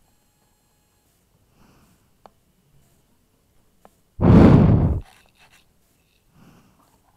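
Thoroughbred horse snorting once, loudly, with its nostrils right at the microphone, lasting under a second about four seconds in. A few faint clicks and rustles come before and after.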